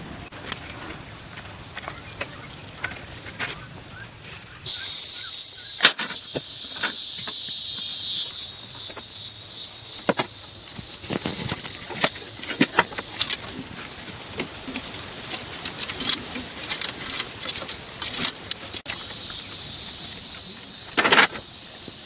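High, steady insect chirring that comes in about five seconds in, fades around thirteen seconds and returns near the end, with scattered short knocks and clicks throughout.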